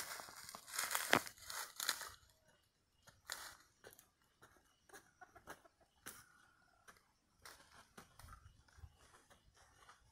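Dry leaf litter crunching underfoot for the first couple of seconds, then faint scattered scrapes and clicks of shoes and hands gripping a thin tree trunk as a man climbs it.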